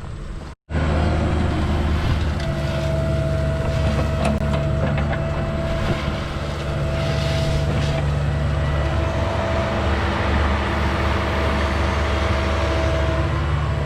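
Diesel engine of a compact construction machine (skid steer or mini excavator) running steadily at working speed, with a thin steady whine over it from about two seconds in until near the end.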